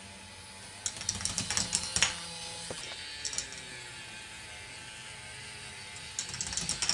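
K'nex crossing-arm lift mechanism clicking: plastic parts rattle and tick in quick runs, about a second in and again near the end, with one sharper click about two seconds in. A steady low hum runs underneath.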